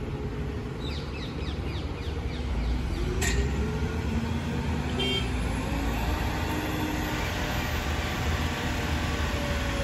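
Diesel tipper truck engine running and revving up as the hydraulic body lifts to dump its load, its pitch rising from about three seconds in and then holding high. A sharp click a little after three seconds in and a short beep about five seconds in.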